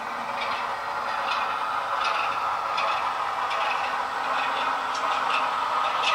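Heljan class 33/1 model locomotive's ESU LokSound DCC sound playing a recorded Sulzer diesel engine through a small speaker, getting louder as the model approaches. Light ticks come about every three-quarters of a second.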